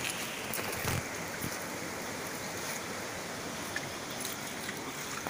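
Steady rush of water flowing over the rocks of a shallow mountain stream, with a faint knock about a second in.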